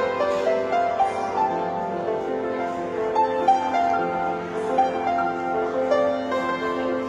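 Piano playing a slow melody over held chords.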